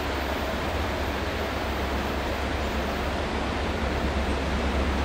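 Approaching freight train's diesel locomotives: a steady low rumble under a constant rushing noise, growing slightly louder near the end.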